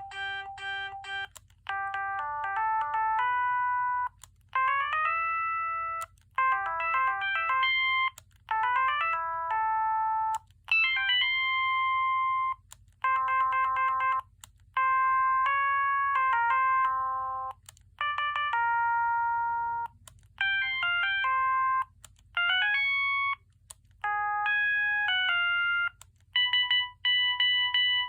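Siemens C55 mobile phone playing its preloaded electronic ringtone melodies: short tune phrases of a second or two each, separated by brief pauses, and near the end a few repeated beeps on the same notes.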